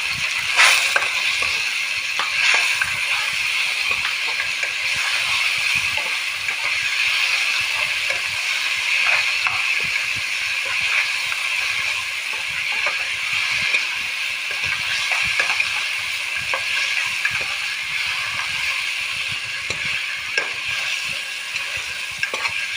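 Tomato and ground mustard-seed curry base sizzling steadily as it fries in a pan, with scattered light taps and scrapes of stirring.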